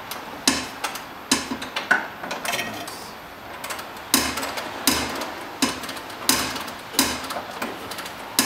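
Half-inch-drive ratchet clicking in short strokes on an engine mount nut, about ten sharp metal clicks with a lull about three seconds in.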